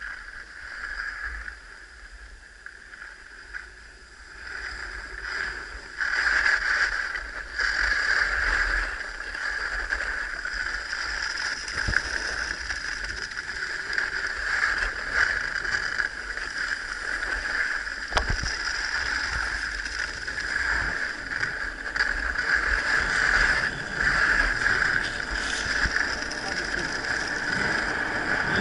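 Skis sliding and scraping over groomed, packed snow during a downhill run, with wind rumbling on the microphone. The hiss is quieter at first and grows louder from about five seconds in as speed builds, with a couple of sharp clicks.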